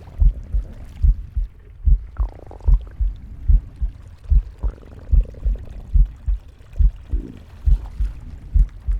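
Heartbeat, a steady lub-dub at about 75 beats a minute, with stomach growling: three short gurgles, about two, five and seven seconds in.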